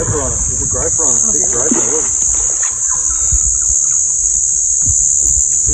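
Steady, high-pitched shrilling of a chorus of insects, over a low rumble.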